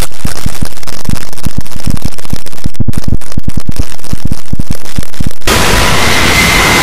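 Very loud, heavily distorted heavy music: a rapid, uneven run of deep thudding hits that cuts off abruptly about five and a half seconds in, giving way to a dense wall of noise.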